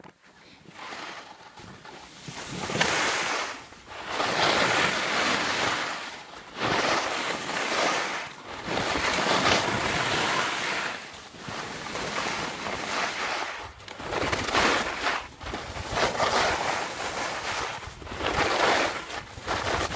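Wind buffeting the phone's microphone: a loud rushing noise that surges and dies back every second or two.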